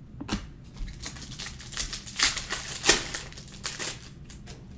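Trading cards and their plastic pack wrapper being handled: a run of short, sharp crinkles and clicks, loudest about two and three seconds in.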